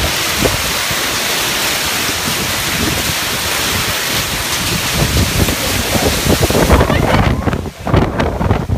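Hailstorm with strong wind coming in through an open entrance doorway: a loud, dense rushing hiss of hail and wind that turns gusty and uneven near the end.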